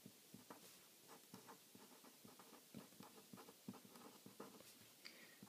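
Faint sound of a pen writing on paper: a run of light, irregular strokes.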